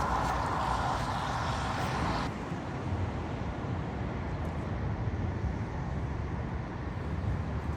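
A car running, with a steady low rumble throughout; a loud rushing hiss over it cuts off abruptly about two seconds in.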